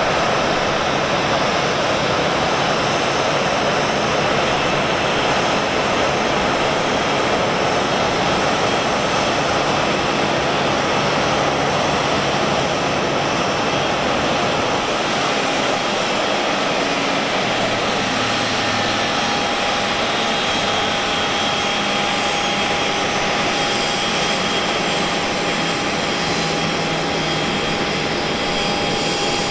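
Boeing 737-800's CFM56-7B turbofan engines running at low taxi thrust as the airliner rolls past close by: a steady, loud jet rush. A steady whining tone comes in about halfway through.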